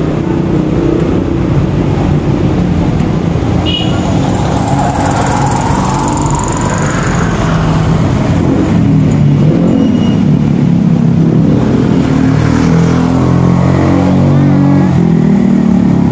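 Street traffic with motorcycles going by, a continuous engine sound. One engine rises in pitch between about four and seven seconds in.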